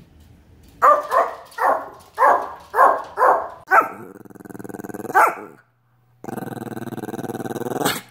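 A small dog barking in a quick run of about seven barks, about two a second. It then growls, with one more bark, and after a brief pause it gives a longer steady growl.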